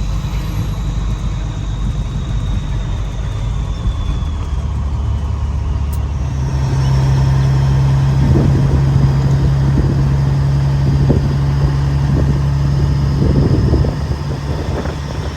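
Steady engine and road drone of a vehicle driving, heard from inside the cab. About six seconds in, a deeper steady hum comes in and the sound grows louder, then eases near the end.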